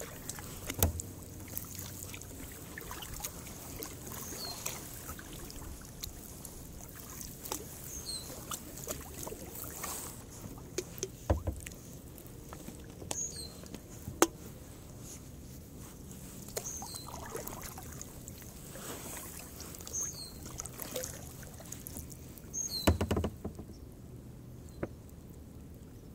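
Kayak being paddled at an easy pace: the paddle dipping into the water and dripping, with scattered light clicks and knocks and one louder thump near the end.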